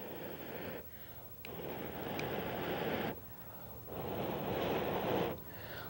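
A man blowing long, steady breaths onto smouldering cotton mill waste to get it burning, each breath about a second and a half with a short pause between, with a faint click or two.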